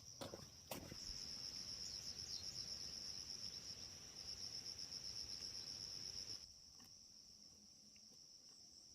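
Insects, crickets or similar, trilling in a steady high-pitched chorus, with a few sharp clicks near the start. From about a second in, a louder steady rushing noise joins and cuts off suddenly after about five seconds.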